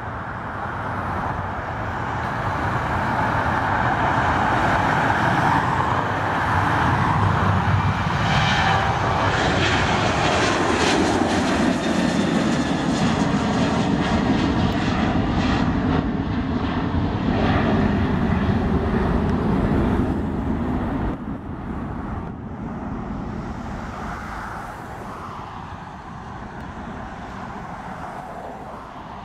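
Twin jet engines of a Southwest Boeing 737 at takeoff power as it rolls and climbs out. The steady jet noise builds over the first few seconds and stays loud for most of the climb. It drops off after about twenty seconds and fades as the plane moves away.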